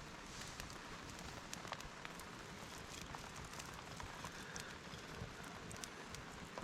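Steady rain falling, an even hiss with scattered sharp ticks of individual drops striking.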